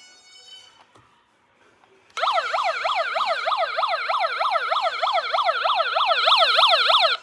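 Electronic police-style siren in a fast yelp, its pitch sweeping down and up about four to five times a second. It starts abruptly about two seconds in and cuts off suddenly near the end.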